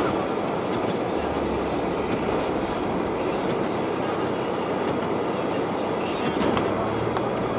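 Steady rumbling cabin noise of a car on a snow-covered road. A low engine hum comes in about a second in and rises in pitch near the end.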